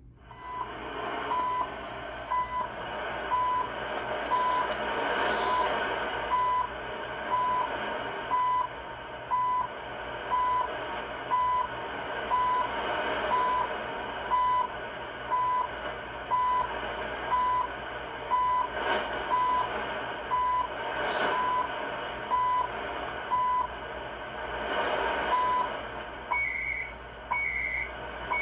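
CHU time-signal station on 3330 kHz, heard through a Kenwood R-5000 shortwave receiver on an MLA-30 magnetic loop antenna. Short 1 kHz beeps come once a second over steady static. Near the end one beep is missing, and short higher-pitched data-tone bursts take over.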